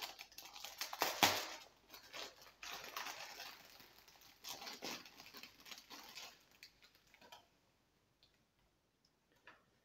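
Clear plastic wrapping crinkling and rustling as hands pull it off a small saddle pad, dying away about seven seconds in, followed by a few faint clicks.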